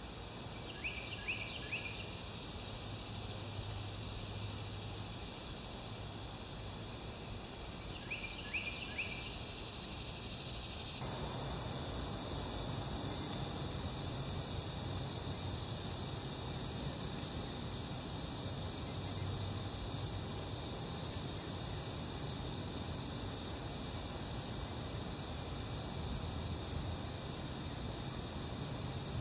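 Outdoor insect chorus: a steady, high buzzing drone that jumps suddenly louder about a third of the way in and then holds. Twice in the first ten seconds, a small bird gives a brief cluster of chirps.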